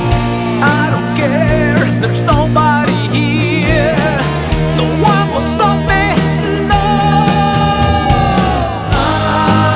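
Rock music in an instrumental break: a lead guitar plays a solo with wide vibrato and bends, holding one long note that bends down near the end, over drums and bass.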